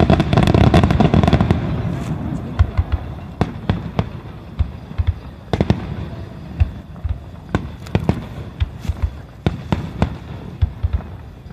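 Aerial firework shells bursting: a dense rapid volley of bangs in the first two seconds, then single reports every half second to a second.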